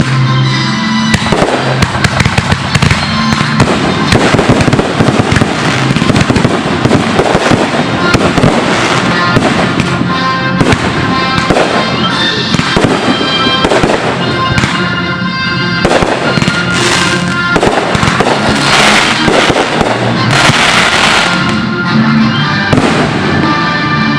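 Fireworks going off in a dense, rapid barrage of bangs and crackles, with music playing underneath. The crackling swells twice near the end.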